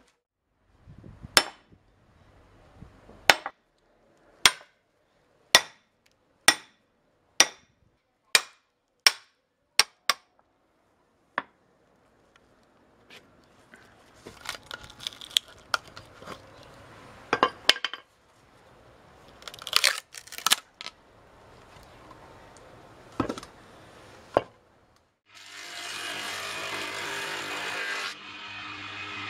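Cherry log rounds being split with a hatchet: sharp blows about one a second, then irregular knocks and cracking of the wood. About 25 seconds in, a stationary planer-jointer starts up and runs steadily and loudly.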